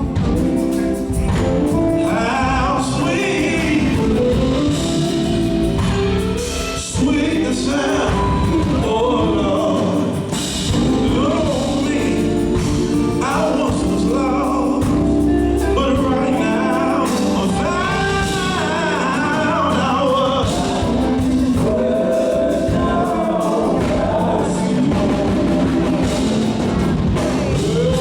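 Gospel group singing live with instrumental backing, voices carrying a slow, sustained melody.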